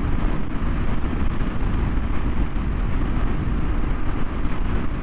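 Yamaha Ténéré 700's parallel-twin engine running at a steady cruising speed on a dirt road, blended with a steady rush of wind.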